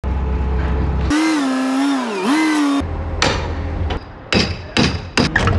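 A low steady rumble, then a wavering pitched tone for about a second and a half, then sharp hammer knocks on a plywood shipping crate, several in quick succession near the end, as the crate is opened.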